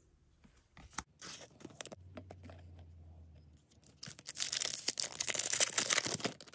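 Trading cards being handled and set down with light clicks and rustles, then a plastic booster pack wrapper crinkling loudly as it is torn open by hand, the loudest part in the last two and a half seconds.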